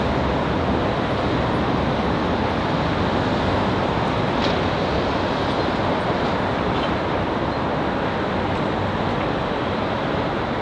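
Electric commuter train running on the rails: a steady rolling rumble with a few faint ticks.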